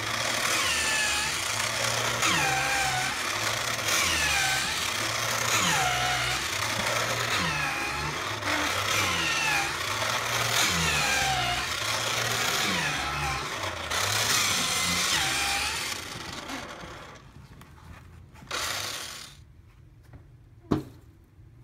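Background music: a falling figure repeats every second or so over a stepped bass line, then fades out about three-quarters of the way through, leaving a few faint clicks.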